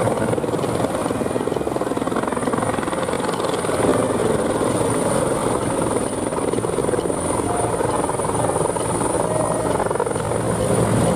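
Military utility helicopter hovering low, with a steady, fast rotor chop and a thin high turbine whine running evenly over it.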